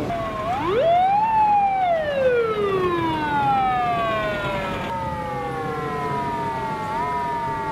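Police car siren wailing: a quick rise in pitch, then a long, slow fall. A second wail overlaps at the start, and a short upward blip comes near the end.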